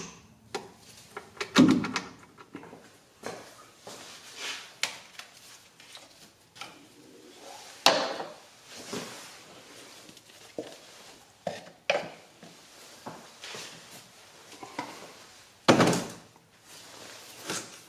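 Scattered knocks, clicks and plastic clatters from hands handling tools and parts: a torque wrench at the drain plug, then the oil fill cap being taken off and a plastic funnel and oil jug being set in place. The loudest knocks come about two seconds in and shortly before the end.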